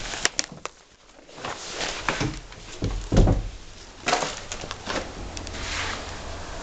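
Scattered knocks, clicks and rustling, with one heavy thump about three seconds in.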